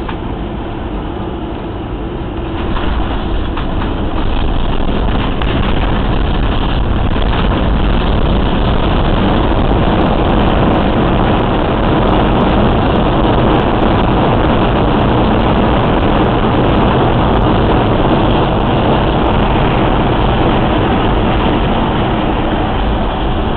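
Jet airliner heard from inside the cabin as it rolls down the runway after landing: a loud, steady rumble of engines and wheels that swells about three seconds in and then holds.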